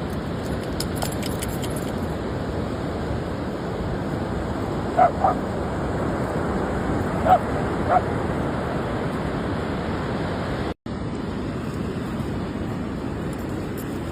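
A dog gives four short barks about midway, over a steady rushing background noise.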